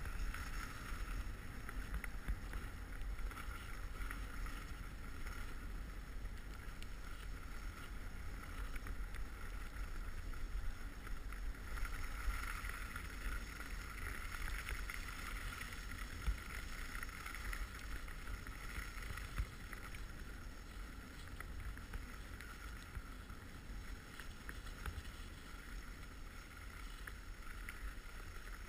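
Skis sliding over packed snow with a steady hiss that swells a little mid-way, over a low rumble of wind on the microphone.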